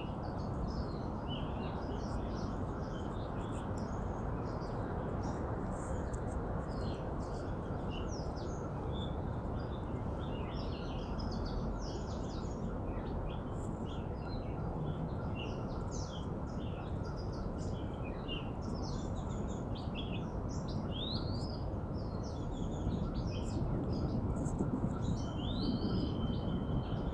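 Several small birds chirping and singing together, a dense run of short, high, quick rising and falling notes with a held high note near the end, over a steady low background rumble.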